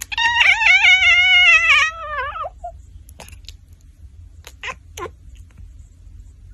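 A domestic cat gives one long, wavering meow of about two and a half seconds that drops in pitch at the end. A few faint short sounds follow over a low, steady background hum.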